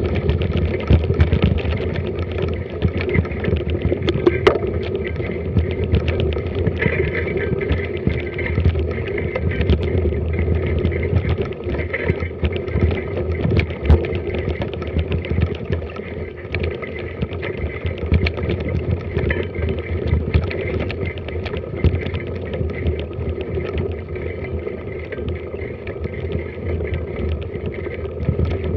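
Mountain bike ridden over a rough, wet forest trail: a continuous rattle and many short knocks from the bike and camera mount over bumps, over tyre noise and a low rumble.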